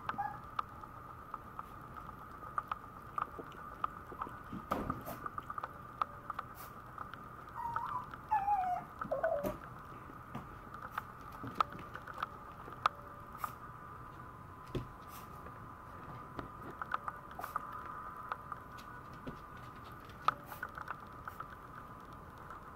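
Maltese puppy lapping at a water bowl and moving about on a vinyl floor, giving scattered small clicks and taps. About eight seconds in it gives a short whine that falls in pitch in a few steps.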